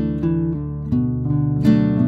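Background music: acoustic guitar picking and strumming chords, with a new chord struck about a second in.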